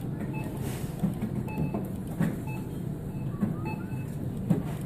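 Claw machine and store background: a steady low hum with short electronic beeps about once a second and a few light knocks.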